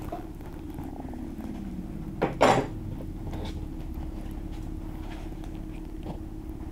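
A steady low drone with a held tone, and a lower tone gliding down over the first two seconds. One short, sharp, loud hit comes about two and a half seconds in.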